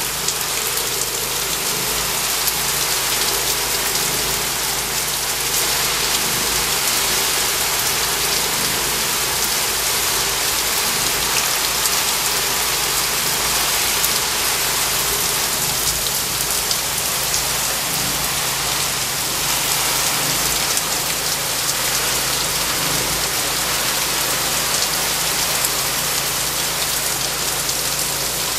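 Heavy rain falling in a downpour: an even, steady hiss that doesn't let up.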